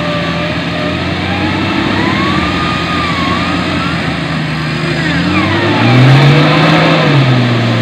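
Off-road Jeep's engine revving hard while it is stuck in deep mud, its wheels spinning. The revs climb and get louder about six seconds in, then ease off near the end.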